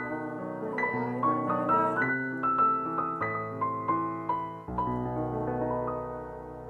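Piano music: a melody of struck notes over chords. About two-thirds of the way through it settles on a held chord that slowly fades.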